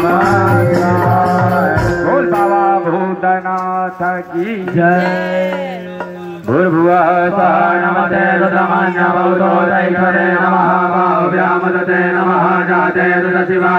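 Priests chanting Hindu ritual mantras in a group, amplified over a microphone and loudspeaker, with a steady drone held beneath the voices. A fast high rattle sounds in the first couple of seconds. The chant thins briefly around the middle, then comes back in full.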